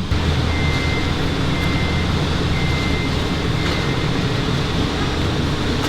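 A machine's backup alarm beeping about once a second, four times, over a steady low motor hum, as from a forklift or similar warehouse vehicle reversing.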